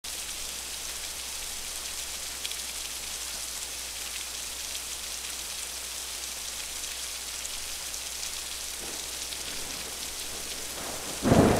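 Heavy rain falling, a steady hiss of drops. A short, louder rush of sound cuts in near the end.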